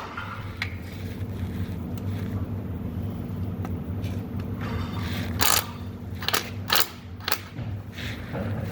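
Hand tools clinking and knocking against metal during engine teardown work: a few sharp strikes, bunched between about five and seven and a half seconds in, over a steady low hum.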